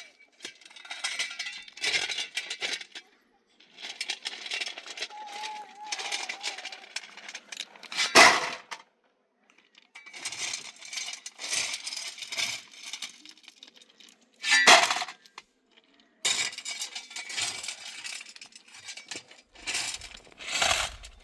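Hard objects scraping and clinking in repeated bouts, with three louder sharp knocks.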